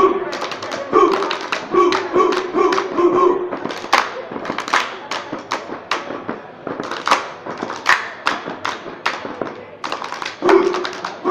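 A group doing body percussion: fast rhythmic slaps of hands on thighs and body, with claps and thuds. In the first few seconds and again near the end, the group chants short repeated syllables in unison on one note over the slapping.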